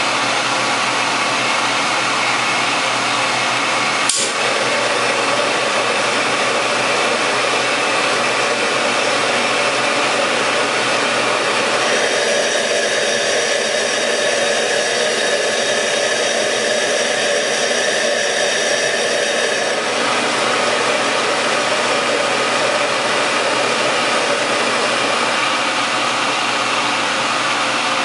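High-pressure gas wok burner running with a steady rushing hiss of gas and flame. There is a single sharp click about four seconds in. For about eight seconds in the middle, while the flame burns tall and blue, the noise changes character.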